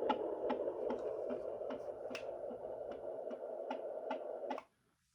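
A 20-week fetal heartbeat played through a home fetal Doppler's speaker: a steady rushing noise with quick, regular beats about two and a half a second, cutting off suddenly near the end.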